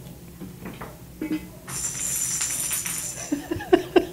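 Small bell inside a plastic lattice cat-toy ball jingling as kittens bat it about, starting a little under two seconds in, with a few light knocks near the end.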